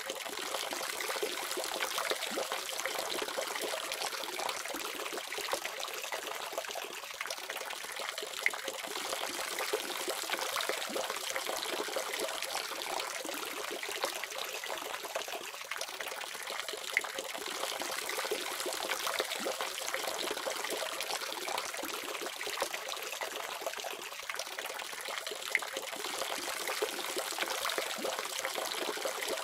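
A water faucet running steadily, its stream splashing and trickling into a basin without a break.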